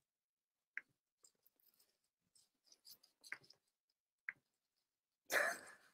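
A few faint, sharp computer mouse clicks, three of them spread over several seconds, against a near-silent room. A short breathy noise near the end.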